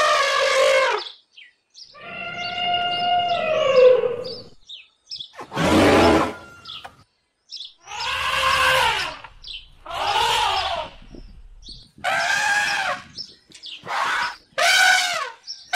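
African elephant trumpeting: a run of about eight calls, each one to two seconds long with short gaps between, several dropping in pitch at the end, and one rougher, lower call about six seconds in.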